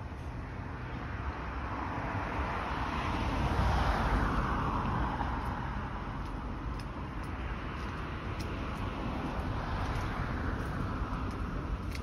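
Road traffic going by: a vehicle's tyre and engine noise swells to its loudest about four seconds in and fades, with a second, fainter pass near the end, over a low rumble.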